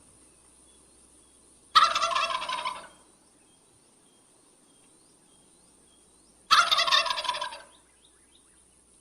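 Male wild turkey gobbling twice, about five seconds apart: each gobble is a loud, rapid gurgling call lasting about a second that trails off.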